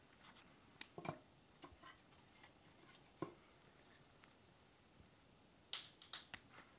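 Faint, scattered clicks of steel surgical instruments, scissors and needle holder, handled while tying and trimming suture, with a quick cluster of sharper clicks near the end.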